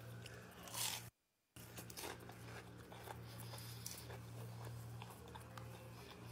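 Crisp fried breading of chicken strips crunching and crackling as a strip is pulled apart: a short crackle about a second in, then faint scattered crackles over a low hum.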